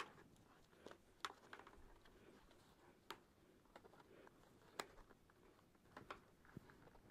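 Faint rustling of a foam-and-fabric cheek pad being pressed into a motorcycle helmet's liner, with a few sharp clicks scattered through it as the pad is fitted into place.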